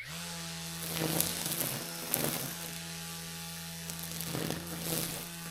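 Battery-powered electric string trimmer starting up and running at a steady hum, with a few brief swishes as the spinning line cuts through weeds.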